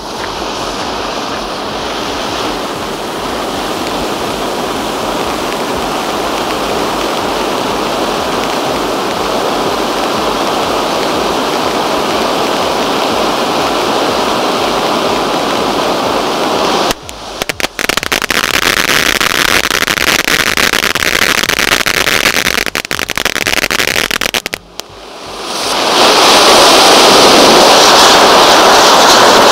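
Two rainbow pinwheel firework fountains spraying sparks with a steady rushing hiss. It builds slowly, drops out briefly twice, about 17 and 25 seconds in, then comes back louder and brighter near the end.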